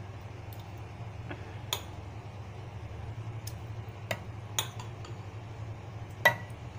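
A metal spoon clinking against a steel mixer jar and a bowl as spoonfuls of yogurt are scooped and tipped in: about six sharp clinks, the loudest near the end, over a steady low hum.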